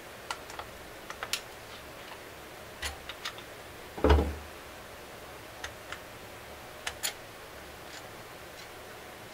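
Scattered light clicks and taps of hand tools and engine parts being handled on a workbench, with one louder knock about four seconds in.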